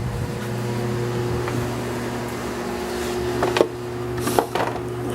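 A steady low mechanical hum, with a few short clicks and knocks about three and a half to four and a half seconds in.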